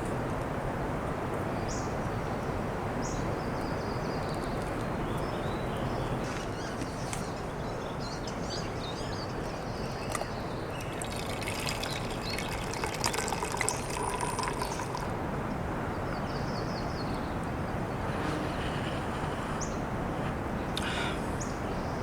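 Steady rush of flowing water, with short high chirps scattered over it.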